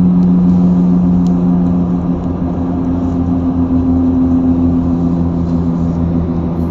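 Vehicle engine running with a steady low drone, heard from inside the cabin; its held hum shifts a little in pitch about halfway through.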